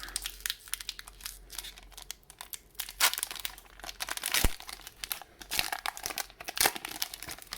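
Foil booster pack wrapper being torn open by hand, a dense crinkling crackle with a couple of sharper snaps about three and four and a half seconds in.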